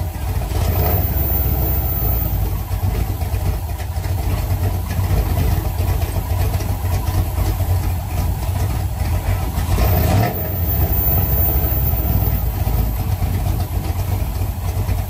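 Hot-rodded Chevrolet Chevelle's engine idling with a steady low rumble.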